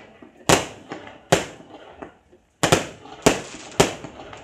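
Aerial fireworks shells bursting: five sharp bangs, each trailing off in a short echo. There are two bangs in the first half, a brief gap, then three more in quick succession about half a second apart.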